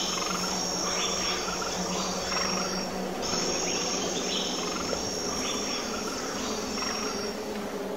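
Insects shrilling: a steady, high-pitched song that breaks off briefly about three seconds in, then resumes and stops near the end.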